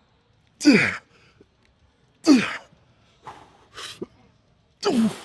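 A man's loud voiced exhales, each falling in pitch, three of them a second and a half to two and a half seconds apart with quieter breaths between: hard breathing from the strain of a heavy set of arm exercises.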